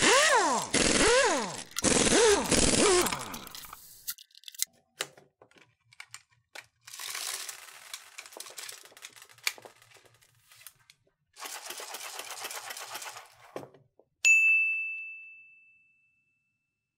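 A screwdriver working a screw into a plastic airsoft BB speedloader, scraping with repeated rising-and-falling squeaks for the first three seconds. Later come two stretches of rattling and clicking as BBs are worked through the speedloader. Near the end there is a single bright sound-effect ding that rings out for about a second and a half.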